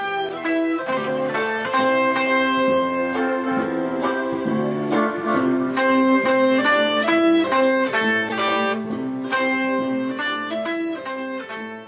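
Enka band music playing the song's closing instrumental bars, trailing off near the end.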